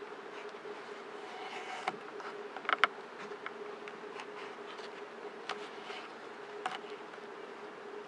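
Cord being pulled and wrapped around wooden poles while a lashing is tied: soft rustling with a few short, sharp creaks and clicks, the loudest a quick pair about three seconds in. Underneath is a steady low hum.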